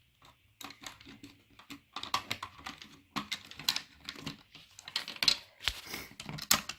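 Irregular clicking and tapping of hard plastic toy anatomy pieces being handled and pressed into a plastic body model, sparse at first and busier from about two seconds in.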